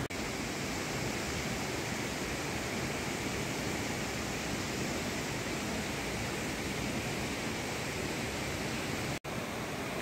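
Steady rushing of flowing water from a mountain stream, an even hiss and rumble that cuts out for an instant about nine seconds in.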